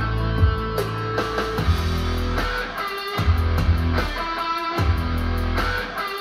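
Guitar-led music with a bass line, played back through an Icon Audio MFV 3 Super floorstanding loudspeaker.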